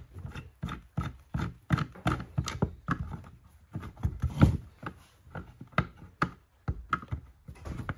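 Irregular knocks, clicks and scrapes of a small electrical meter being handled and prised at with a screwdriver to pull its casing apart.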